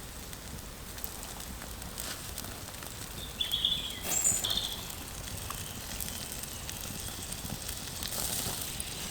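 Quiet outdoor ambience with a few short, high bird chirps about three and a half to four and a half seconds in, and faint scattered clicks.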